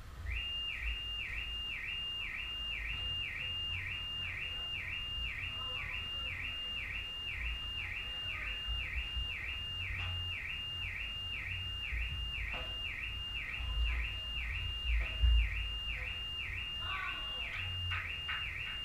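A high electronic tone warbling up and down about twice a second, starting just after the outset and carrying on without a break, over a low rumble and a few faint knocks near the end.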